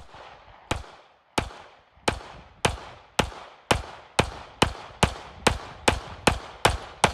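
Compact Sig Sauer P320 9mm pistol fired in a steady string of about fifteen shots, each with a short echo, the pace quickening from about one shot every 0.7 s to one every 0.4 s.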